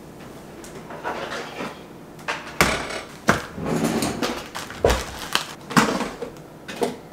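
Kitchen handling noise: several sharp knocks and clatters, the loudest about five seconds in, as an air fryer's basket is pulled out and frozen food is taken from its box.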